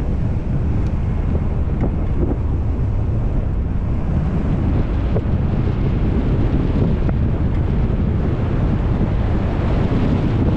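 Wind buffeting the outside-mounted camera microphone of a Ford Bronco driving on a dirt track: a steady low rumble, with a few faint ticks.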